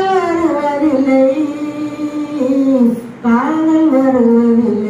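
An elderly woman singing solo into a handheld microphone: a slow melody of long held notes with small glides between them, and a brief pause for breath about three seconds in.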